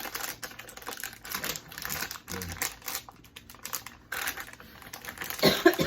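Plastic snack packaging crinkling and rustling in the hands as a bag of chocolate-covered marshmallow banana candies is opened, a quick run of small crackles. A brief voice sounds near the end.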